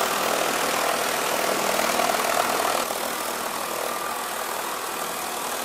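Stainless-steel bowl chopper running steadily with a mechanical hum and whir as it works minced chicken, dropping slightly in level about three seconds in.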